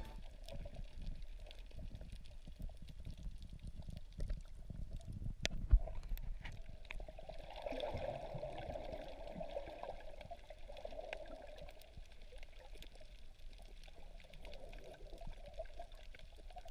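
Gurgling, trickling water, with a single sharp click about five and a half seconds in.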